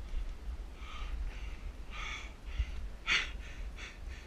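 A rock climber's heavy breathing from exertion: sharp breaths about once a second, the loudest about three seconds in, over a steady low rumble.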